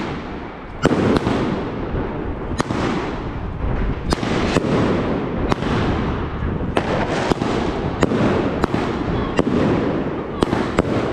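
Fireworks going off: sharp bangs at uneven intervals, roughly one a second, over a continuous dense crackling, with the loudest bang about a second in.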